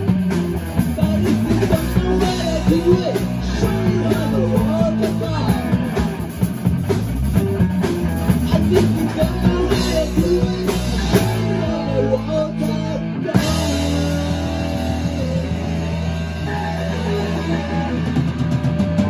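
Rock band playing live: electric guitars, electric bass and drum kit, with a singer.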